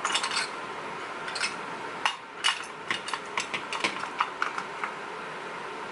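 Small metal lock parts and tools being handled, giving a string of sharp, irregular clicks and clinks that come thicker about halfway through.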